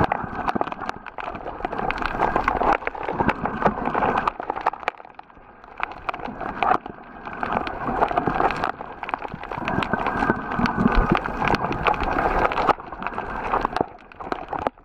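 Muffled underwater noise picked up by a submerged camera, swelling and fading in long waves with a brief quieter patch about five seconds in. Scattered sharp clicks and crackles run through it.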